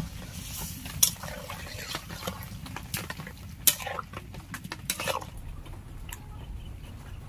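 Metal spatula stirring a thick, creamy soybean curry in an iron kadai, with scrapes and knocks against the pan every second or so, the sharpest a little after three and a half seconds in.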